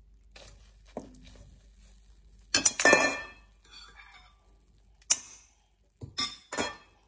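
Utensils clinking and knocking against a mixing bowl of whisked eggs as butter is put in: a light knock about a second in, a louder run of clinks around three seconds in, another knock about five seconds in, and two more near the end.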